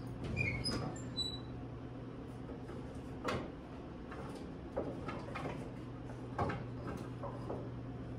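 Scattered knocks and clatter of someone searching through classroom cupboards and shelves, over a steady low hum.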